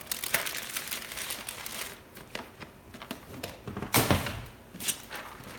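Brown paper bag crinkling and rustling as it is handled. About four seconds in there is a thud, with a lighter knock just under a second later.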